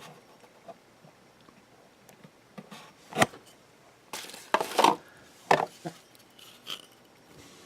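Opened solar charge controller and its circuit board being handled, giving a few sharp clicks and knocks: one about three seconds in, a quick cluster around four to five seconds, then one more, with a fainter tap near the end.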